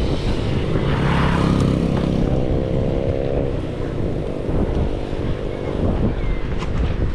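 Wind buffeting the microphone while riding, with a motor vehicle's engine droning past from about one to three and a half seconds in, its pitch rising slightly.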